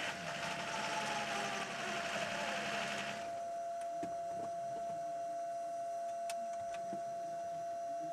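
Onboard sound of the Audi R18 e-tron quattro's V6 diesel hybrid powertrain at low pit-lane speed, with a falling whine as the car slows. About three seconds in the engine noise cuts off suddenly as the car stops at its pit box. A steady high whine and a few sharp clicks carry on after.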